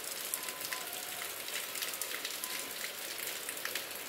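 Steady rain falling: a dense even hiss with many scattered sharp drop ticks.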